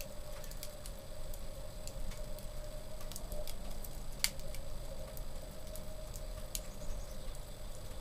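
Wood fire burning in an open wood stove, crackling with scattered small pops and one sharper pop about four seconds in.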